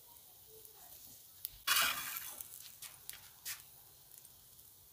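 A metal spatula scraping under fried eggs in a black skillet: one harsh scrape lasting about half a second, with a few light metallic clinks before and after it.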